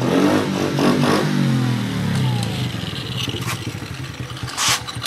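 Small 50cc pit bike engine running as the bike rides up, its pitch falling steadily as the throttle is eased off, then running low and quiet. A short noisy burst near the end.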